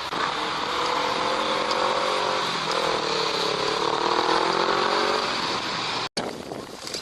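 A motor engine running steadily, its pitch dipping slightly and rising again, until the sound cuts off abruptly about six seconds in.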